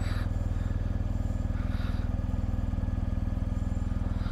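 Motorcycle engine idling steadily with an even, fast pulse.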